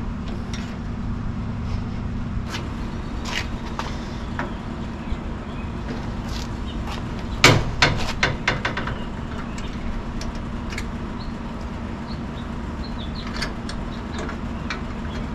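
Scattered light metal clicks and knocks as nuts are turned by hand on the steel leveling bolts under a gutter miter station, with one sharper knock about halfway through. A steady low hum runs underneath.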